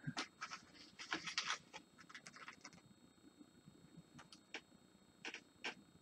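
Small scratchy clicks and rattling from handling a clear plastic tub of basing scatter on the desk: a busy run of light knocks over the first three seconds, then a few single clicks.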